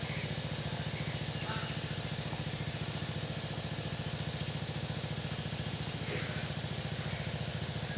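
A small engine running steadily at idle, with a fast, even pulse.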